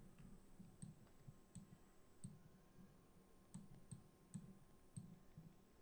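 Faint computer mouse clicks: about seven short, separate clicks spaced irregularly, over low room hiss.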